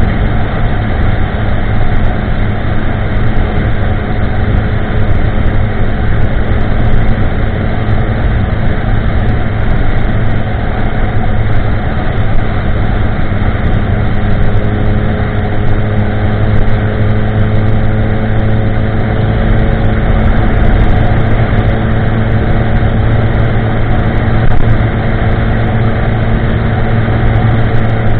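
2016 Kawasaki ZX-10R's inline-four engine running through a Pro Race GP-R2 de-cat carbon exhaust while the bike cruises at a steady engine speed. The exhaust note is loud but not extreme.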